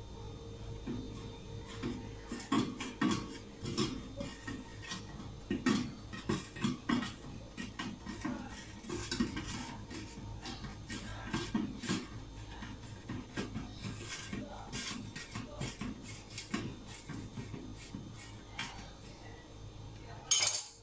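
Kitchen knife clinking, tapping and scraping against dishware in irregular strokes while a baked sponge cake is being cut, with a sharper knock near the end.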